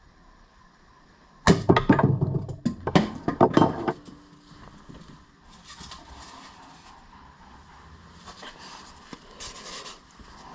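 A spring-loaded spike launcher fires with a sharp snap about a second and a half in, and the struck foam head falls and bounces with a couple of seconds of clattering knocks. Quieter handling noise follows, and a thump comes at the very end as the head is set back down.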